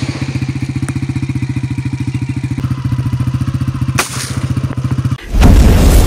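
A steady, rapidly pulsing engine-like drone, cut off about five seconds in by a loud explosion sound effect from a fiery logo intro.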